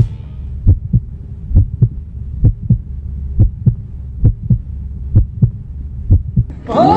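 Heartbeat sound effect: seven slow lub-dub double thumps, a little under one a second, over a faint low hum, cut off suddenly near the end.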